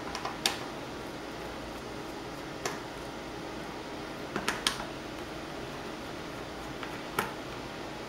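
A handful of sharp little clicks and taps of small screws and a screwdriver against a laptop's plastic case, coming irregularly, two close together about half a second in and two more at about four and a half seconds, over a steady background hiss.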